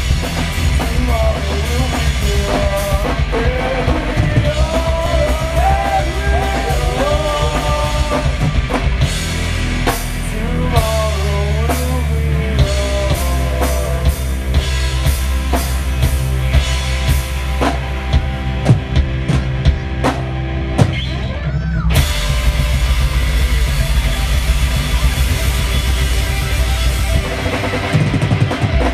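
Rock music with drum kit and a melody line, playing steadily throughout.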